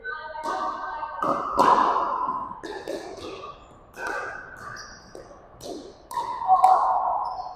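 Pickleball paddles striking a plastic ball in a rally, a string of sharp pops at uneven intervals, with further hits from neighbouring courts mixed in.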